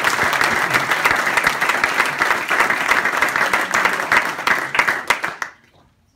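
Audience applauding, a dense patter of hand claps that dies away about five and a half seconds in.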